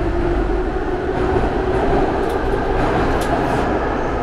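Metro train standing in a station as its doors open: a steady rumble and hum in the car, with a low whine that fades out about a second and a half in and a few faint clicks later on.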